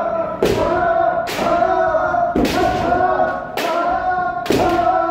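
Kendo practitioners giving long, held kiai shouts, overlapping one another, broken by sharp cracks of shinai strikes and stamping footwork about once a second.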